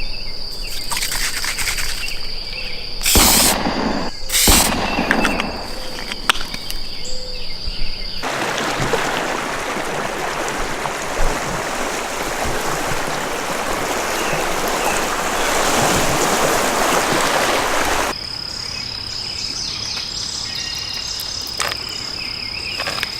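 Insects trilling in one steady high note, with two short loud rushes a few seconds in. From about eight seconds to eighteen seconds a loud, even rushing hiss covers the trill, then stops and leaves the insects again.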